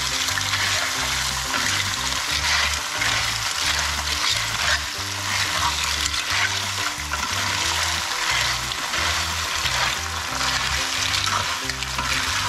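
Freshly added clams (lala) frying in sambal in a pan, with a steady sizzle and the scrape and clatter of stirring. Light background music plays under it.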